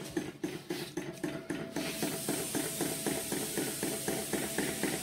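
Lamp-heated hot-air (Stirling) engine of an antique fan running, its piston and crank knocking in a fast even rhythm of about six beats a second. A steady hiss joins in about two seconds in.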